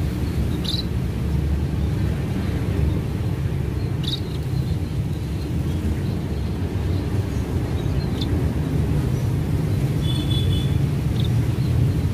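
Albino Javan munias giving short, high single chirps every few seconds, with a brief run of three steady high notes about ten seconds in, over a steady low rumble.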